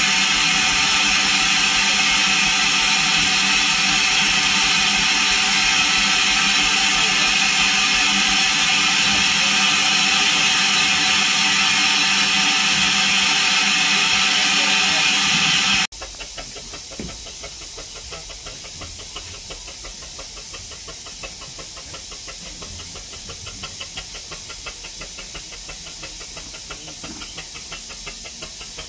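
Loud, steady hiss of steam escaping from a steam engine, with ringing tones running through it. About halfway through it cuts off abruptly and gives way to a much quieter, fast, even pulsing.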